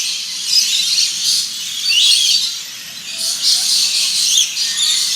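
A flock of lories and lorikeets chattering and screeching, with many high-pitched calls overlapping without a break.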